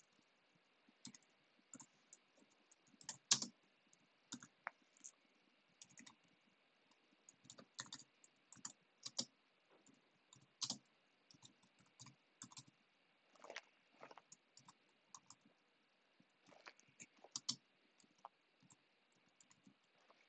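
Faint typing on a computer keyboard: irregular keystrokes in short runs, with pauses between them.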